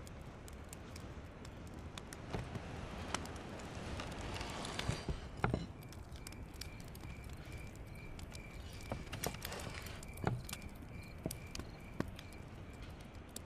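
Knife slicing a grilled flat iron steak on a wooden cutting board, with scattered crackles and clicks.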